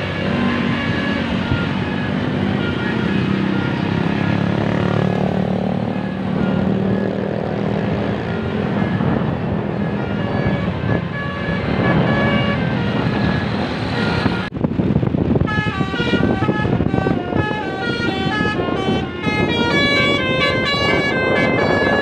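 Road traffic: buses and motorcycles driving past. About two-thirds of the way through, after a sudden break, a bus's multi-trumpet telolet horn plays a rapid stepped melody of high notes.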